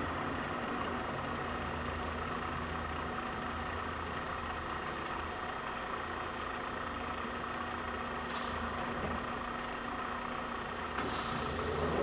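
LeBlond 4025NK hollow spindle engine lathe running its spindle at a higher speed: a steady mechanical hum with a few steady tones. Two brief faint hissing sounds come near the end.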